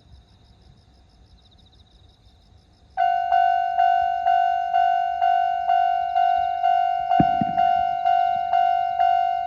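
A railway level-crossing warning bell starts up about three seconds in and rings steadily at about two strikes a second, each strike a clear ringing note that fades before the next. It signals that a train is approaching the crossing. Two low knocks come near the end.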